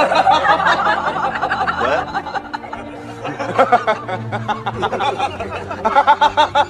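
Background music with a person laughing in repeated short bursts, most clearly near the end.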